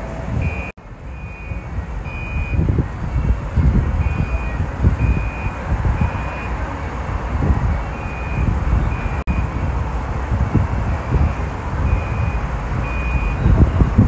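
A high electronic beep repeating about twice a second, in runs with short breaks, over a loud, uneven low rumble.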